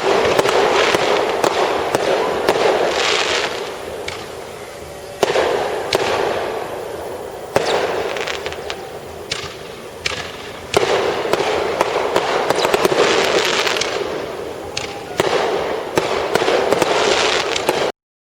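Fireworks going off in a steady barrage of crackling bursts, with a fresh loud volley every two to four seconds. The sound cuts off abruptly near the end.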